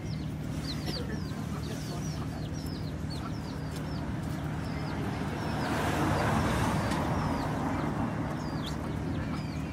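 Young chickens peeping, with short high chirps that drop in pitch, repeated over and over, above a steady low rumble. A vehicle passes about six seconds in, in a rising and fading swell of noise that is the loudest moment.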